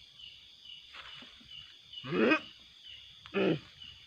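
Night insects chirping in a steady pulse, about three chirps a second. Twice a man gives a short, low, throaty vocal sound, about two seconds in and again near the end, which are the loudest sounds here.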